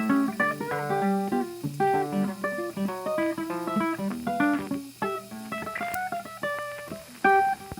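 Background music: acoustic guitar played in quick plucked runs of notes.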